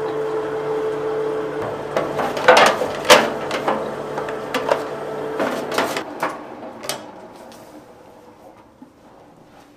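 A stainless-steel grinding mill running with a steady hum while ground meal pours from its chute. It is followed by a series of sharp knocks and scrapes as the chute is cleared by hand. The machine sound then dies away over the last few seconds.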